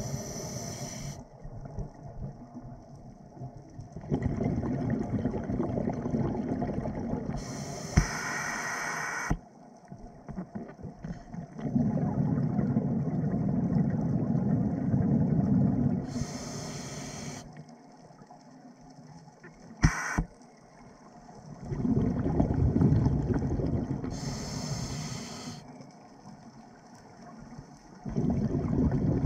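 A scuba diver's own breathing through a demand regulator: a short sharp hiss on each inhale and a longer low rumble of exhaled bubbles, repeating about every eight seconds.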